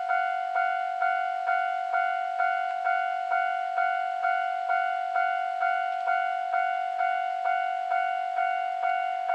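Japanese railway level-crossing warning bell ringing steadily, a little over two strikes a second, each ring running into the next. It signals that a train is approaching the crossing.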